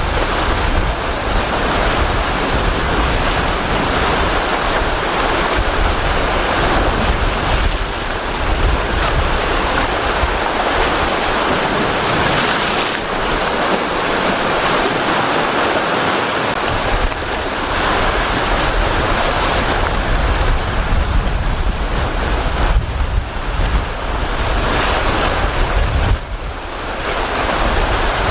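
Strong gale-force wind buffeting the microphone in gusts, over the steady rush of rough sea and breaking waves.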